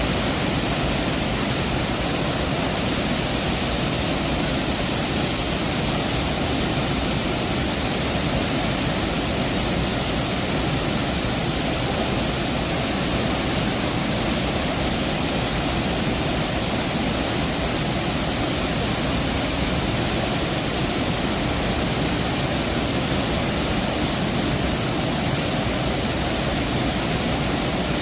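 Water rushing steadily out through the open spillway gates of a dam releasing floodwater.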